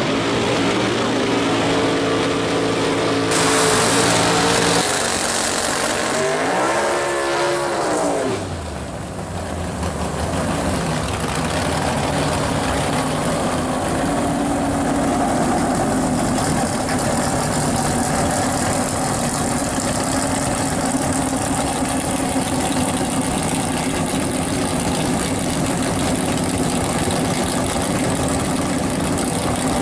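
Drag-race V8 engines running hard down the strip, with an engine pitch rising and falling, then after a brief dip the fat-tire 1965 Pontiac GTO drag car's V8 running steadily and loud through its open exhaust.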